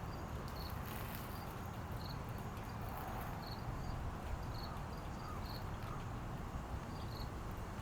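Steady background noise with a low rumble, and short high-pitched chirps repeating about once a second.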